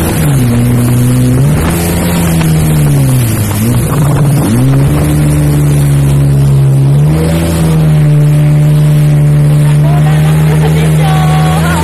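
Jet ski engine running under way over rushing water and wind. Its pitch drops and climbs back twice in the first few seconds, then holds a steady, higher note for the rest.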